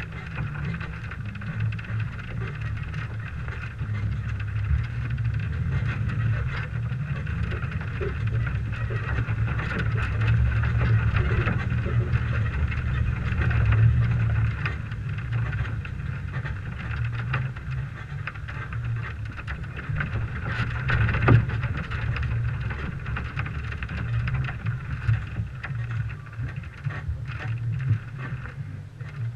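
Rumble of a 1998 Toyota 4Runner's engine and running gear as it drives slowly over a dirt motocross track, heard through a hood-mounted camera, with scattered small clicks and one sharp knock about two-thirds of the way through.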